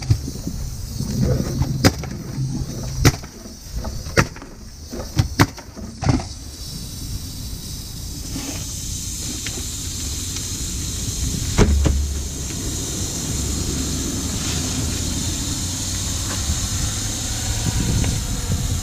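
Pneumatic coil roofing nailer firing nails into tar paper, six or seven sharp shots about a second apart over the first six seconds and one more near twelve seconds. From about eight seconds in, a steady hiss rises under it.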